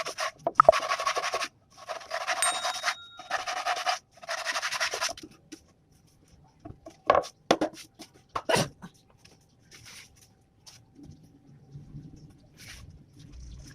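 Plywood being sanded by hand with sandpaper: about four long rubbing strokes, which stop about five seconds in. A few knocks and taps follow as the wood is handled.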